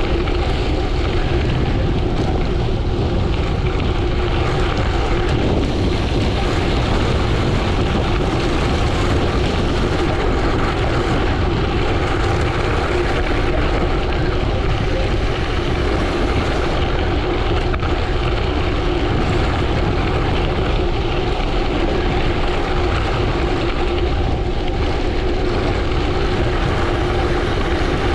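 Wind rushing over the camera microphone and tyres rolling on gravel during a fast bicycle descent, a steady noise with a constant hum running through it.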